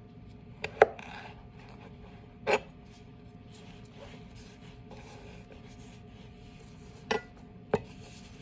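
Chef's knife striking a plastic cutting board while slicing carrot sticks into julienne: a few sharp knocks, two just under a second in, one about two and a half seconds in and two more near the end, with soft scrapes and taps of the carrot pieces being moved in between.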